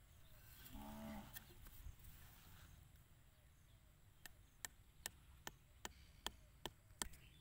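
Light, sharp taps on a bamboo stake, eight in a row at about two and a half a second, as it is knocked into the dirt with a wooden-handled tool. About a second in there is a brief pitched call.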